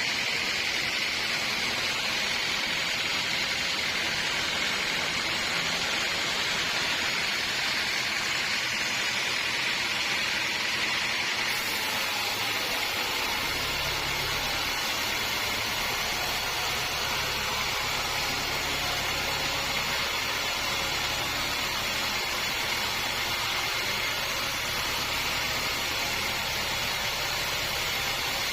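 Sawmill machinery running: a saw cutting through a log with a steady hiss. About halfway through, the sound changes and a steady low engine hum comes in.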